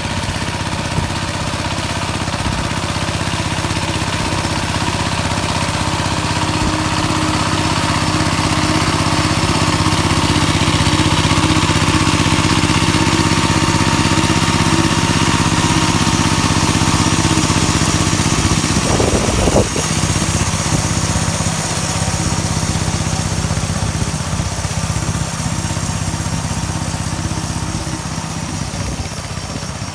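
Engine of a motoblock converted into a small tractor, running steadily while driving a rotary tiller. About two-thirds of the way through there is a short clatter and the engine note changes, then it runs on a little quieter.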